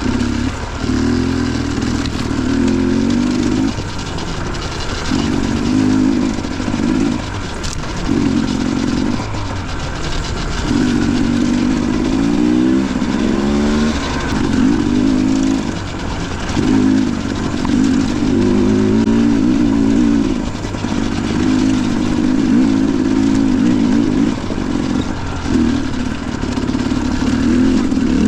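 Dirt bike engine under way on a trail, the throttle opened and closed again and again so the revs rise and fall every second or two, with one clear climb in pitch about halfway through.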